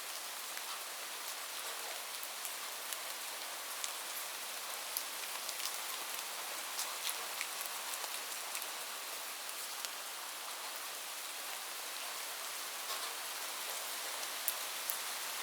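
Steady rain falling as an even hiss, with many sharp ticks of single drops striking a hard surface scattered through it.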